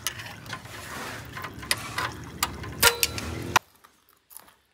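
Metal tools clicking and clinking as a mechanic works on a motorcycle, with several sharp knocks. The sound cuts off suddenly about three and a half seconds in.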